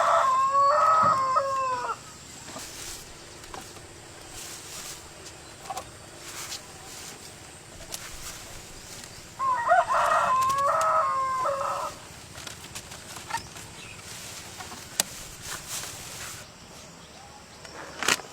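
A rooster crowing twice, each crow about two seconds long and roughly ten seconds apart, with faint scattered clicks and knocks in between.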